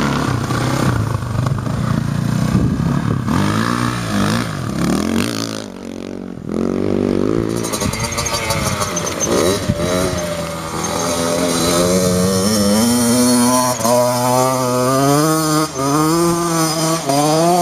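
Dirt bike engines revving, their pitch rising and falling with the throttle. There is a break about six seconds in, and through the second half one engine holds a climbing note that wavers as it is worked.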